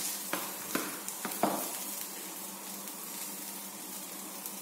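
Aloo kulcha frying in ghee: a steady sizzle, with a few light knocks in the first second and a half.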